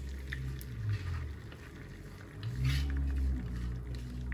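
Batter poured into a hot buttered cast-iron skillet, with a faint crackle of sizzling. Over it runs a low wavering hum that rises and falls, loudest a little past halfway.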